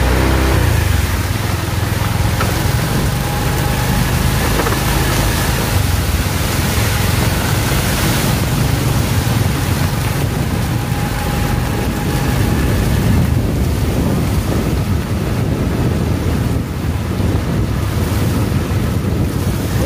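Heavy rain and spraying water as a vehicle drives along a flooded road: a steady rushing noise over a low engine rumble.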